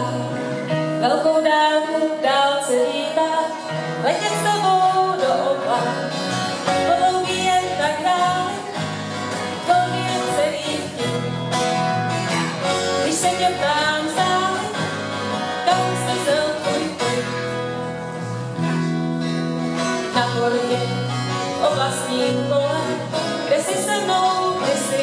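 Live folk band: a woman singing a song into a microphone, accompanied by two acoustic guitars and an electric bass guitar.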